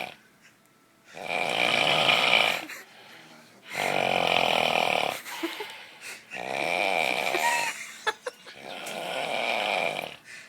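Loud snoring: four long, rattly snores about two and a half seconds apart, each lasting about a second and a half.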